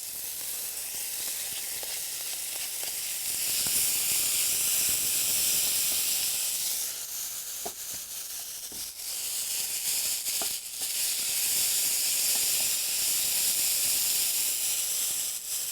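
Chopped tomato and onion sizzling in a hot frying pan. The hiss starts suddenly as the tomato goes in and grows louder a few seconds later. It eases off briefly in the middle, then swells again, with a few light clicks.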